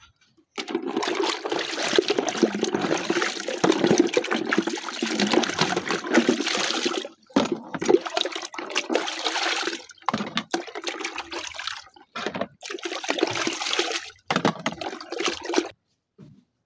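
Water sloshing and splashing in a plastic bucket as plastic dishes are washed by hand in soapy water. Continuous at first, then in shorter bursts with brief pauses, stopping near the end.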